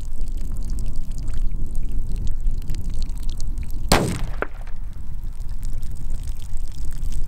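Wind rumbling on the microphone. About four seconds in comes one sharp crack as a 6.5 Grendel rifle shot reaches the plastic barrel target from 400 yards, followed by a fainter crack about half a second later.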